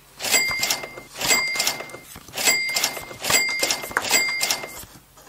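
A cash-register-style 'ka-ching' sound effect, a clatter followed by a bright ringing ding, repeated five times about a second apart, each marking a card's price.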